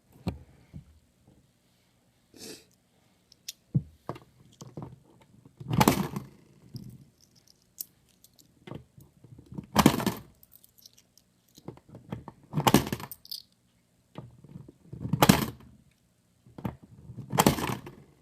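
Loose coins jingling and clinking, shaken or handled in about five short bursts a couple of seconds apart, with scattered small clicks before them.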